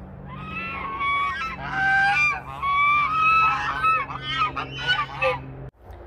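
Three white domestic geese honking repeatedly, several calls overlapping. They are guard geese sounding off at a person they have noticed. The calls break off suddenly near the end.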